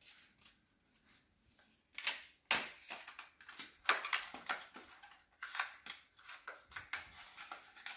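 Plastic packaging of a set of piping tips being torn open and crinkled by hand: an irregular run of sharp crackles and snaps starting about two seconds in.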